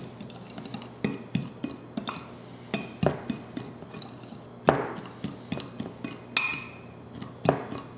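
A utensil stirring a dry spice rub in a small bowl, clinking and scraping against the bowl in quick, irregular taps, with a few louder knocks.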